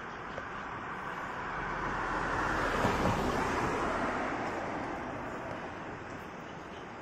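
A gust of wind rustling through tree leaves, swelling to a peak about three seconds in and dying away.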